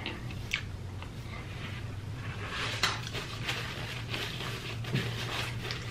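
Paper packaging crinkling and rustling as a sheet of it is picked up and handled, in a run of crackly clicks that thickens about halfway through. A steady low hum sits underneath.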